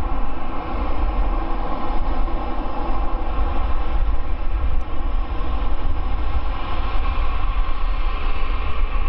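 Boeing 787-9's Rolls-Royce Trent 1000 turbofans running at taxi power as the airliner taxis: a steady engine whine over a low rumble.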